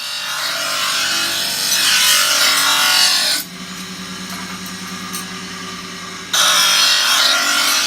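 Electric grinder grinding the steel of a sickle blade: two long grinding passes with a break of about three seconds between them, during which the motor keeps running with a steady hum.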